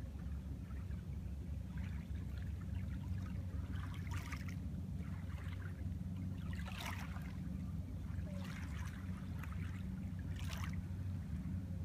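Small waves lapping on a gravel and pebble shore, a soft wash every second or two, over a steady low rumble.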